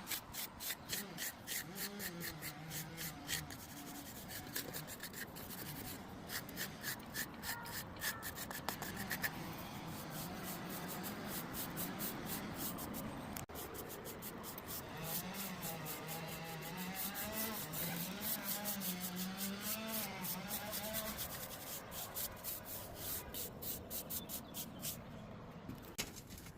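Sandstone being rubbed and polished by hand with quick, repeated back-and-forth scraping strokes, several a second, in runs broken by short pauses, over a low wavering hum.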